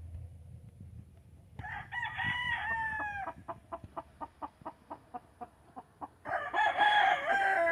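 Sweater gamefowl rooster crowing: one crow starts about one and a half seconds in, followed by a run of short, evenly spaced clucks, then a second, louder crow near the end.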